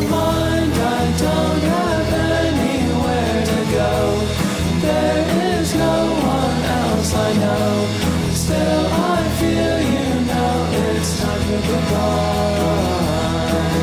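Background song: a singing voice over steady instrumental backing.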